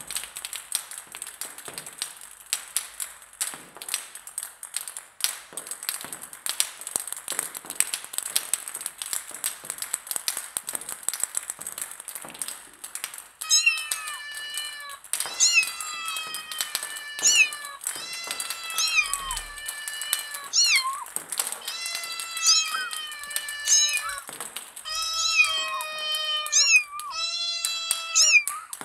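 Table-tennis balls bouncing on a hard surface, a quick, irregular patter of light taps. About halfway through, a cat starts meowing: a string of short, high meows, each rising and falling in pitch, about one a second.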